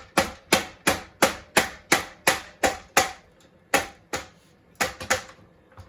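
A hammer tapping repeatedly on a part of a Honda Express moped's front end to work it loose: a steady run of light, sharp knocks about three a second, with a brief pause a little past the middle.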